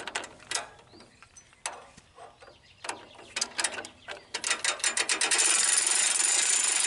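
Hand-crank winch on a Wood-Mizer LT15GO sawmill being cranked to pull a log up the loading ramps, its ratchet pawl clicking over the gear teeth. At first there are a few scattered clicks; then the clicks speed up into a rapid, continuous ratcheting clatter from about five seconds in.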